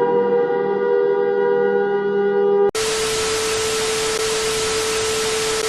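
Electronic alarm tones: several steady pitches held together in a siren-like drone that cut off abruptly under three seconds in. Loud static hiss with a single steady tone running through it follows.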